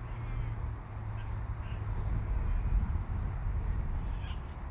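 Outdoor wind noise buffeting the microphone as a steady low rumble, with a few faint bird calls over it: a short wavering call at the start and scattered chirps later.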